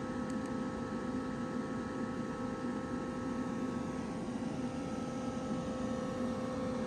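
Steady mechanical hum with a light hiss, holding one level throughout.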